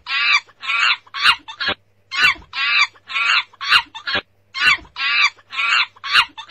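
A monkey calling: three quick runs of short, shrill chattering calls, each call about a quarter second long, with brief pauses between the runs.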